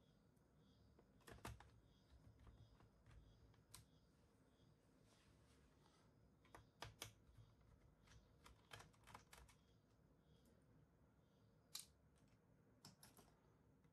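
Faint, scattered clicks and taps of plastic as the Acer Aspire 3 laptop's back cover is unclipped and lifted off, in small clusters a second or more apart.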